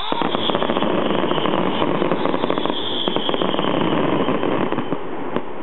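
Fireworks crackling: a dense run of rapid small pops that starts suddenly and thins out near the end.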